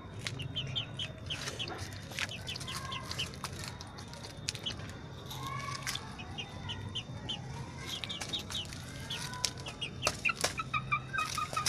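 Domestic chickens clucking in a cage: repeated quick runs of short notes, with a few lower calls and occasional sharp knocks.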